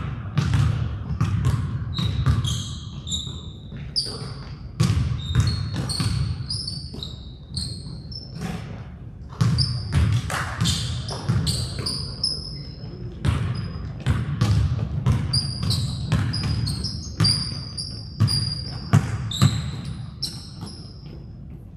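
A basketball being dribbled and bouncing on a hardwood gym floor, with many short high-pitched sneaker squeaks and players' voices in the gym.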